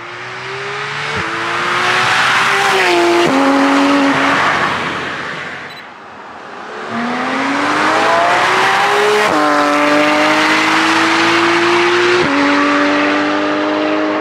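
Porsche 911 GT3 RS (991.1) naturally aspirated flat-six on its stock exhaust with the exhaust valves open, accelerating hard past in two drive-bys. In each pass the engine note climbs and drops at two quick upshifts.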